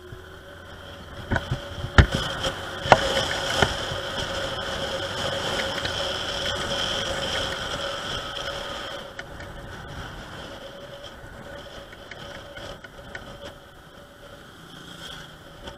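Rusi Gala 125 scooter being ridden, its engine running with a steady whine over road and wind noise. It grows louder for the first several seconds and eases off about nine seconds in, with a few sharp knocks between two and four seconds in.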